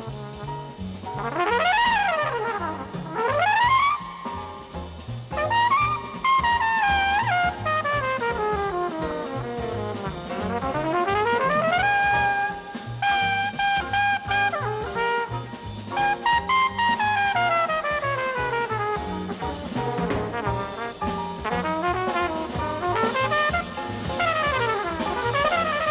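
Flugelhorn jazz solo with fast runs sweeping up and down and a note held for a few seconds about halfway through, over a steady bass and drum pulse.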